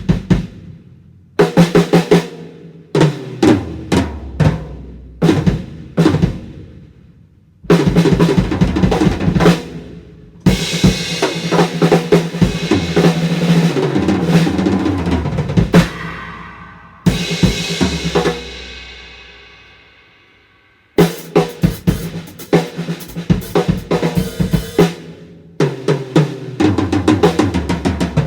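Gretsch Centennial drum kit being sound-checked. Single drums are struck and left to ring, then fills and rolls across toms, snare and bass drum with cymbals. Near the middle one cymbal crash is left to fade for several seconds, before another run of fast hits.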